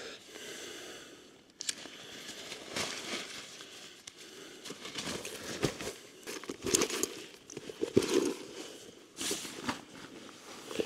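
Irregular rustling and crinkling of something being handled, broken by scattered sharp clicks and knocks that are loudest about two-thirds of the way through.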